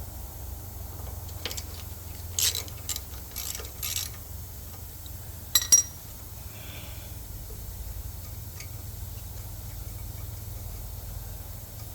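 Metal hand tools clicking and scraping on a mower engine as bolts are worked loose by hand, with a cluster of clinks early on and two sharp, loud clinks a little before the middle, over a steady low hum.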